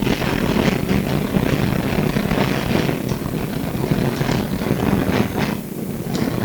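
Melbourne SW5-class tram running, heard from inside the car: a steady low hum and rumble of wheels on rail, with frequent irregular clicks and rattles. It eases off a little near the end.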